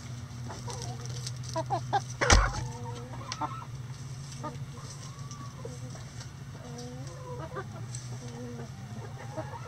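A flock of backyard hens clucking in short, scattered calls. A single sharp thump about two seconds in is the loudest sound.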